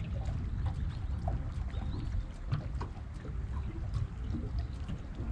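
Small waves lapping and slapping against the hull of a small aluminium boat, with scattered light splashes over a low steady rumble.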